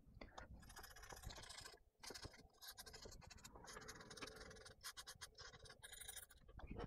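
Faint, rapid scratching of an old toothbrush's bristles scrubbed back and forth over a laptop mainboard around the RAM slot, cleaning off light corrosion. It pauses briefly twice.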